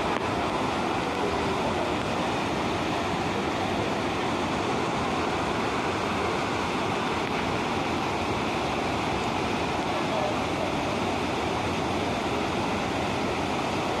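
Waterfall in full spate after typhoon rains: a steady, unbroken rush of water plunging down a rock cliff onto the rocks below.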